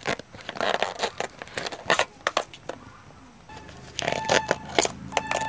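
Purple bracts of a banana blossom being peeled back and snapped off by hand: a run of crisp snaps and crackles. From about three and a half seconds in, a steady tone with a low hum joins in the background.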